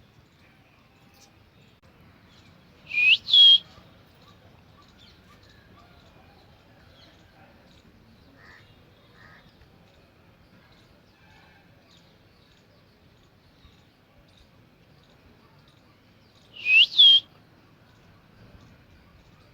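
Baby parrot calling: two shrill double calls, each note rising sharply and then dipping, one pair about three seconds in and another near the end.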